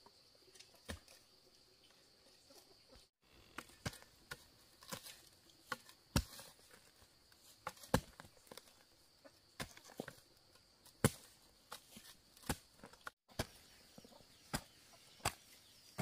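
Irregular sharp knocks, one or two a second, sparse at first and steady after a few seconds, over a steady high-pitched hum. The sound cuts out completely twice for an instant.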